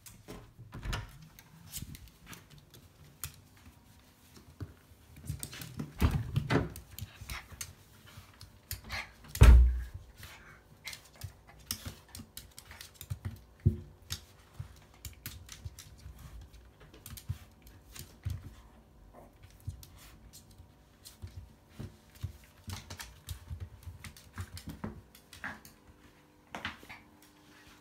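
Scattered light clicks and taps of a toy poodle's claws and paws scrabbling on a hard wood-look floor while it play-wrestles with a kitten, with one heavy thump about nine and a half seconds in.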